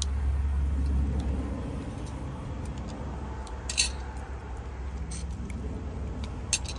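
Cockle shells clicking as they are pried apart by hand and set down on a ceramic plate, a few sharp clicks over a steady low rumble that is loudest near the start.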